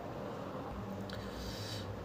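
Steady low hum, with a soft paper rustle from about one second in to near the end as the printed test sheet slides across the desk.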